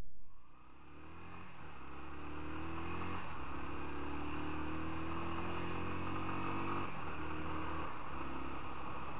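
A motorcycle engine pulling along at town speed, its pitch slowly rising, with several brief dips, as at gear changes or throttle lifts, over road and wind noise. The tail of the intro music cuts off right at the start.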